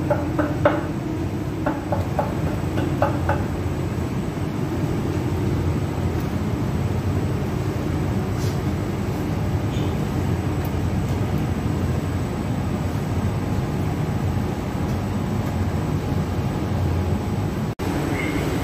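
Steady rumble and hum of a bakery's conveyor bread oven and its machinery running. A run of quick, evenly spaced clicks, about three a second, sounds in the first few seconds, and the noise cuts out for an instant near the end.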